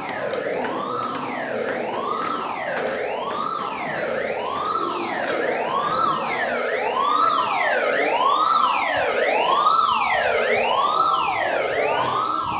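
Building fire evacuation alarm sounding: an unusual, weird-sounding wailing tone that sweeps up and back down in pitch about once a second, repeating without a break.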